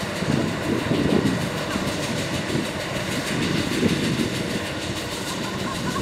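Kubota rice combine harvester's diesel engine running steadily as the machine travels on its rubber crawler tracks, with a continuous low clatter and rattle.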